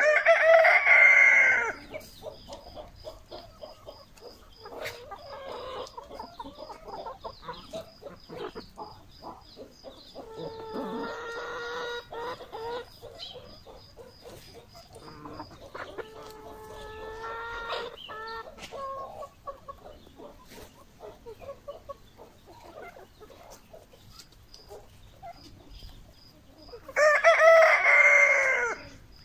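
Chickens: a rooster crows loudly twice, once at the start and again near the end. Between the crows come two softer drawn-out calls and scattered clucking from the flock.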